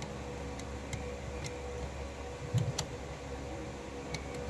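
A few light plastic clicks and taps as fingers work the small levers of an Epson L6170's paper-feed assembly, with one louder knock about two and a half seconds in. A steady low hum runs underneath.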